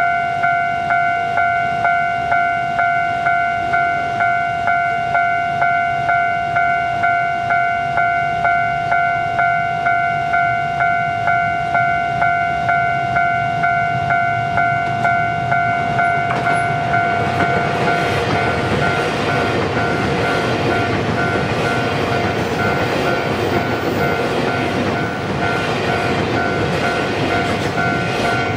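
Level-crossing warning bell ringing, an electronic ding repeated evenly about twice a second. From about halfway the rumble of a TEMU2000 Puyuma Express electric tilting train grows as it approaches, and it passes through the crossing near the end.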